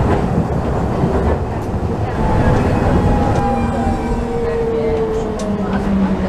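Hiroshima streetcar running, heard from inside the cab: a steady low rumble of wheels on rails with a few light clicks, and a motor whine that slowly falls in pitch over the second half.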